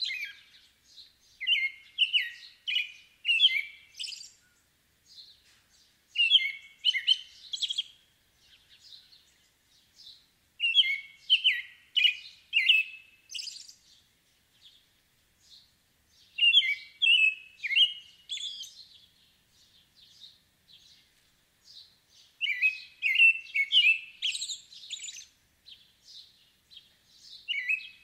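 American robin singing: phrases of short, clear whistled notes, each phrase lasting two to three seconds and repeated every four to six seconds, with fainter high-pitched notes in between.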